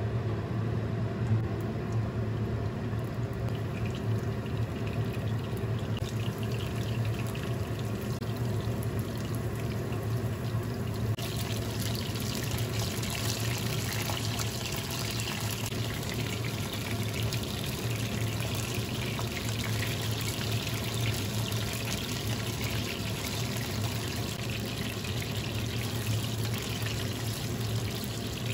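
Battered chicken pieces sizzling as they fry in hot oil in a non-stick wok. The sizzle builds in steps as more pieces go in, and is loudest from about eleven seconds on. A steady low hum runs underneath.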